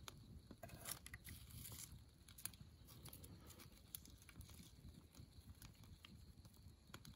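Near silence: faint, scattered clicks and crackles from a small wood campfire as sticks are laid on it, over a low steady rumble.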